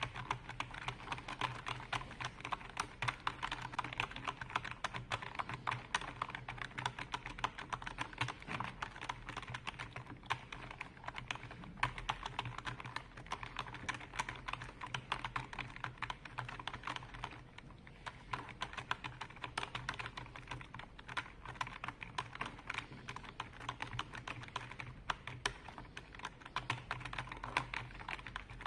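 Rapid, continuous typing on a computer keyboard, key clicks coming many times a second, with a brief pause about two-thirds of the way through.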